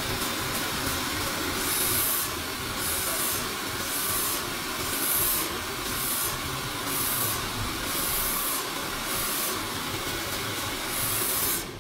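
Handheld hair dryer blowing steadily at the hair. Its high hiss swells and fades rhythmically, about every two-thirds of a second.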